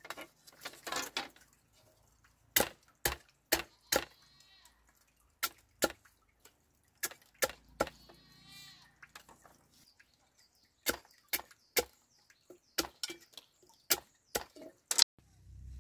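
Machete blade chopping and splitting bamboo strips on a log: a long series of sharp, separate knocks. Twice, about a second in and again about eight seconds in, a wavering drawn-out animal call sounds.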